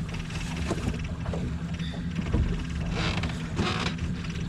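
Boat motor running steadily with a low, even hum, with two brief rushing noises about three seconds in.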